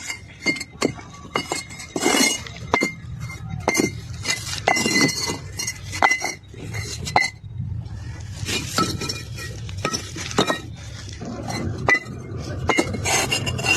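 Fired clay bricks knocked against one another as they are handled, an irregular run of sharp, ringing clinks.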